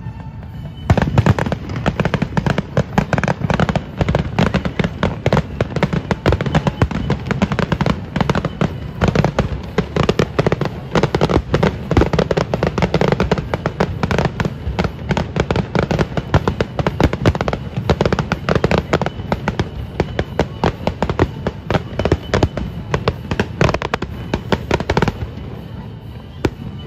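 Aerial fireworks display: a dense, continuous barrage of shell bursts and crackles, many bangs a second, which thins out suddenly about 25 seconds in.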